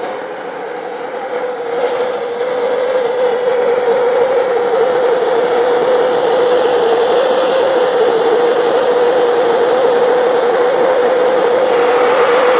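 Hand-held blowtorch on a gas bottle burning steadily as it heats a copper pipe fitting for soldering: a continuous flame rush with a steady tone in it, growing louder about two seconds in.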